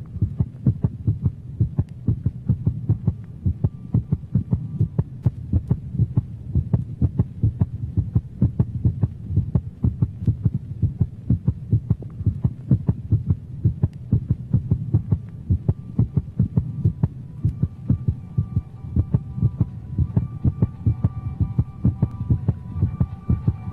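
Electronic soundtrack: a low throbbing drone with a fast, regular pulsing beat. About two-thirds of the way in, higher steady synth tones come and go over it.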